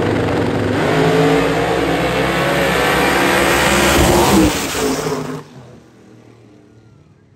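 Drag race cars launching and accelerating hard down the strip, loud engines climbing in pitch. The sound drops away about four and a half seconds in and fades out a second later as the cars get further down the track.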